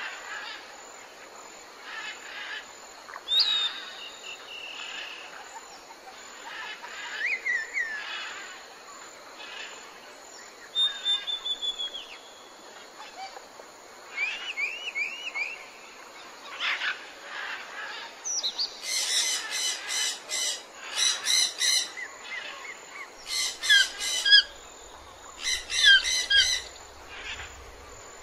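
Several birds calling outdoors: short whistled notes that slide up and down, with runs of quick repeated chirps. The calls grow busier and denser in the last third.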